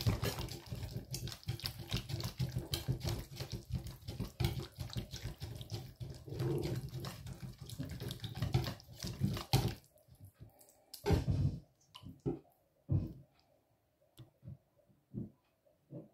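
Wire balloon whisk beating a wet cassava cake batter in a stainless steel bowl: fast, continuous swishing and sloshing with light clinks of the wires against the bowl. It stops about ten seconds in, followed by a few scattered knocks.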